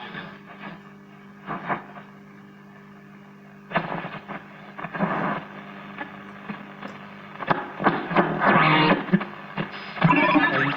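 Loudspeaker of a 1936 Zenith 5S-29 five-tube radio between stations: a steady low hum under irregular bursts of static and brief snatches of broadcast sound as the set is tuned across the band, getting louder near the end.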